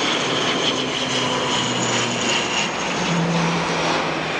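ATR 72-600 turboprop's Pratt & Whitney PW127 engines and propellers running loud and steady, a dense roar with a high whine and low humming tones that shift in pitch about three seconds in.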